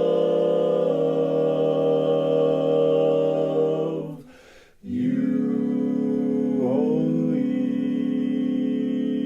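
Barbershop-style a cappella singing in four-part harmony: long held chords, with a short break about four seconds in before the voices come back on a new sustained chord.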